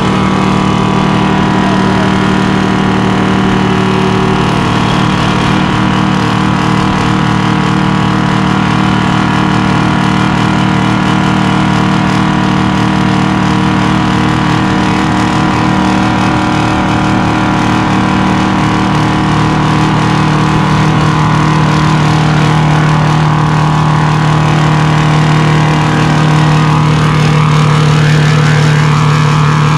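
8V71 two-stroke Detroit Diesel running near wide open through a burnout, a loud steady drone of even engine tones that rises a little near the end.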